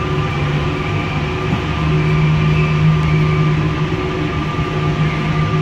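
Interior running noise of an MP89 rubber-tyred Paris metro train moving through a station: a steady low motor hum with a few higher steady tones over rolling noise, swelling slightly in the middle.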